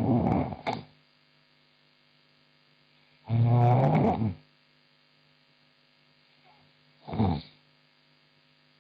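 A woman snoring in her sleep: three snores about three and a half seconds apart, the middle one the longest and loudest with a low buzzing rattle. A faint steady electrical hum sits underneath between the snores.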